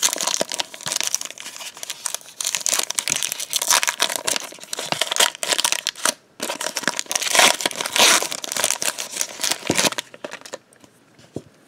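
Foil trading-card pack wrapper crinkling and tearing as it is ripped open by hand, with a short pause about six seconds in. The crinkling dies away about ten seconds in.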